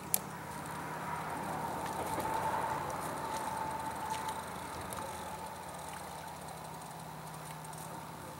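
Fishing reel being cranked as a fish is reeled in, a whirring that swells for a few seconds, with a sharp click just after the start and a faint steady low hum underneath.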